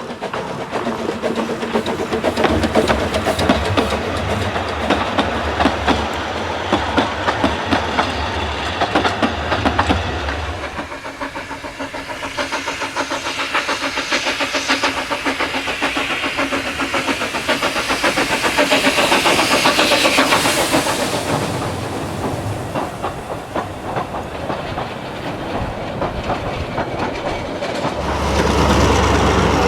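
Trains running along track, wheels clicking rapidly over rail joints, with a brief hiss a little past halfway. The sound changes abruptly twice.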